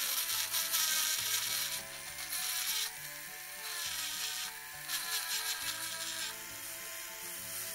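Small pen-style rotary grinder whining steadily, with rasping grinding in three spells, at the start, about two and a half seconds in and about five seconds in, as its bit scours rust off a coil-spring battery terminal so the contact conducts again. The motor's pitch sags a little under the load.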